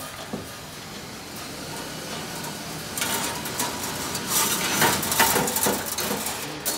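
Light metallic clinking and scraping of thin steel ceiling-hanger wire being handled overhead. It gets busier and louder about three seconds in.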